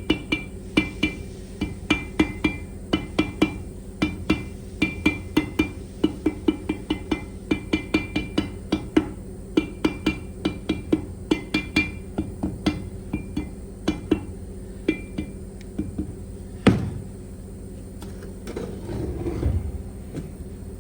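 A hammer tapping on metal steering-column parts, about three ringing blows a second in short runs with brief pauses. One heavier blow comes about two-thirds of the way in, followed by a short clatter of metal parts.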